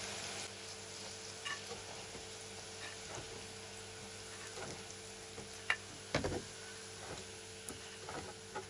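Potato cubes frying in hot oil in a pan, a steady sizzle, as they are scooped out with a slotted spatula. A few clicks and knocks of the spatula against the pan, the loudest about six seconds in.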